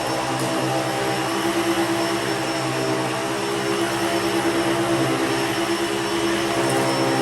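Bissell Pet Hair Eraser Turbo upright vacuum running steadily with its brush roll, cleaning rubber-backed mats: a constant motor hum with a steady whine.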